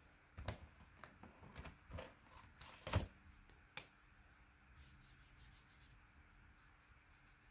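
Acrylic paint marker handled with a few light clicks and knocks, the loudest about three seconds in, then its tip faintly rubbing across paper as a swatch is drawn.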